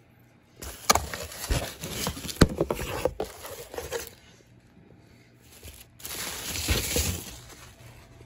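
Clear plastic packing wrap crinkling and crackling as it is handled and pulled out of a cardboard shipping box, in two spells with a quieter gap between them.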